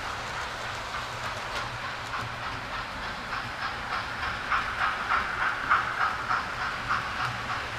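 Model steam locomotive and its train running along the layout's track, a rhythmic pulsing about three times a second that grows louder as the locomotive passes close, about halfway through, then eases off.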